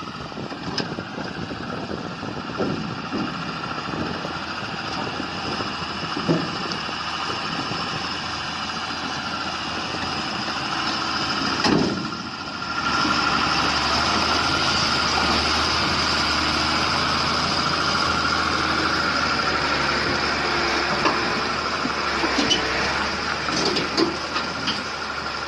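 Heavy vehicle engine running steadily; the sound changes abruptly about twelve seconds in, becoming louder and more even.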